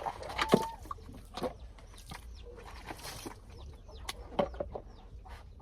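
Short bird calls, clucking like chickens, among scattered sharp clicks and knocks.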